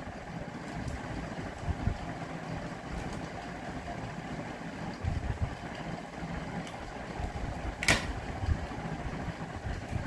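Faint clicks and handling of a plastic Pyraminx puzzle over a steady low background rumble, with one sharp click about eight seconds in: a laptop key pressed to start the inspection timer.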